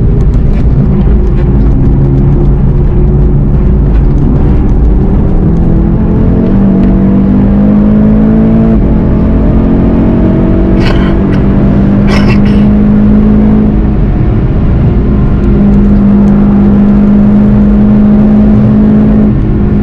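VW Golf GTI TCR's 2.0-litre turbocharged four-cylinder engine accelerating hard, heard from inside the cabin: its note rises, drops at an upshift and climbs again, over steady road and tyre noise. Two short sharp noises are heard about halfway through.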